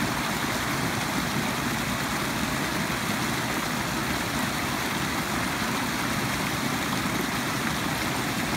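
Floodwater rushing steadily over a small overflow weir, a constant churning rush of water without a break.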